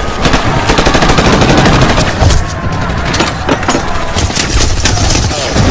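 War-film battle sound: dense automatic gunfire, many shots in rapid bursts, with heavier thuds mixed in.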